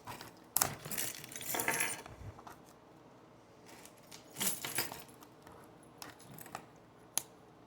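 Baseball card pack and cards being handled: short bursts of crinkling and clicking, one cluster starting about half a second in, another around four and a half seconds in, and a single sharp click near the end.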